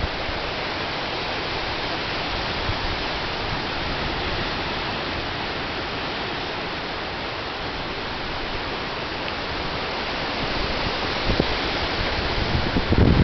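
Storm wind rushing through trees, a steady hiss. Near the end a gust begins buffeting the microphone with a low rumble.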